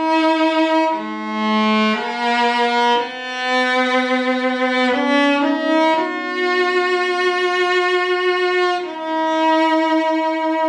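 An old German cello, about 200 years old, bowed solo in a slow melody of long sustained notes, with a few quicker note changes near the middle and one note held for about three seconds.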